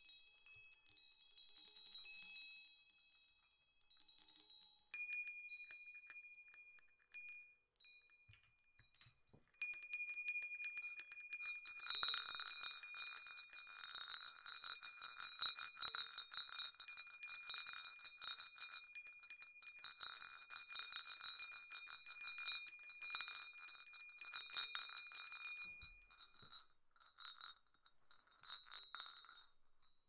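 Small jingle bells shaken, high metallic tinkling and ringing. Sparse light tinkles first, then about ten seconds in a sudden, dense, continuous jingling that runs for some fifteen seconds, followed by a few short shakes near the end.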